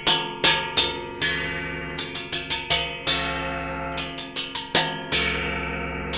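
A hand-muted bronze gong struck quickly and repeatedly with red nylon brushes: about twenty sharp metallic hits in an uneven rhythm, each ringing briefly before it is damped.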